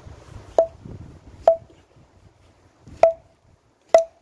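Hatchet chopping a branch of firewood on a log chopping block: four sharp strikes, each with a brief ring.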